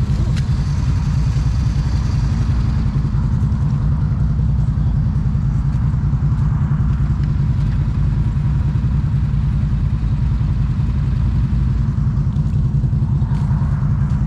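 An ATV engine running steadily under way, a constant low drone with no change in pace.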